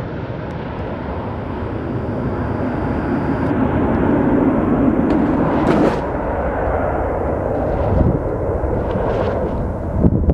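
Loud jet noise from a pair of MiG-29AS fighters, each with two Klimov RD-33 turbofans, making a low pass over the runway. The roar builds over the first half and changes abruptly about halfway through.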